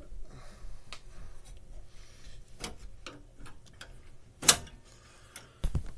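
Small clicks and taps of a flathead screwdriver working a wire connector off an air conditioner's control switch, with one louder sharp click about four and a half seconds in and a dull thump just before the end.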